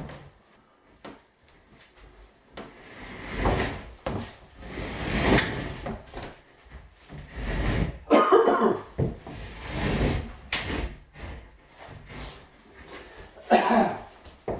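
Chipboard floor panels being handled and stacked on edge against a wall: a series of irregular wooden scrapes, knocks and thuds as the boards are lifted, set down and slid against each other.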